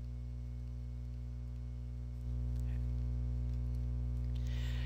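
Steady low electrical hum with a stack of evenly spaced overtones, the kind of mains hum picked up by a recording setup; it steps up in level about two seconds in.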